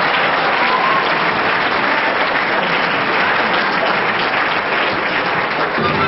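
Audience applauding steadily in a concert hall. Right at the end, the orchestra starts to play.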